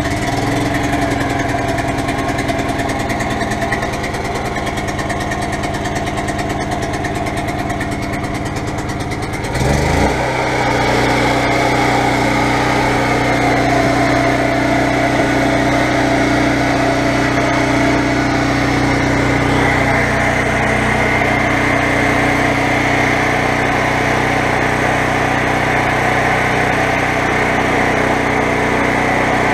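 Predator 8750 portable generator's single-cylinder gasoline engine running steadily, just after being started. About ten seconds in the sound grows a little louder and its tone shifts, then it runs on evenly.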